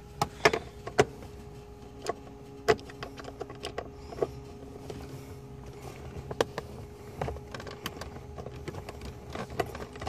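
Screwdriver working the screws out of a plastic steering column cover: irregular sharp clicks and scrapes of the metal tip on the screw heads and plastic trim, over a faint steady hum.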